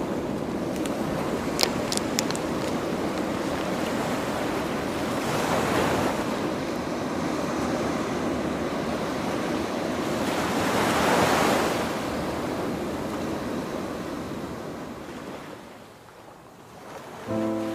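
Sea waves washing onto a beach with wind, swelling twice as larger waves surge in. A few short clicks about two seconds in, and music comes in right at the end.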